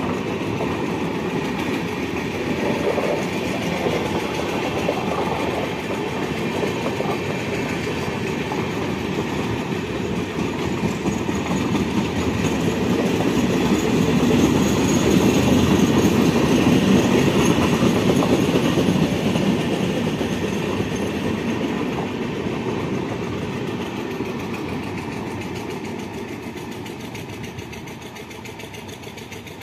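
Indian express train coaches running past on the track, a steady rumble of wheels on the rails. It grows louder around the middle and fades near the end as the tail of the train moves away.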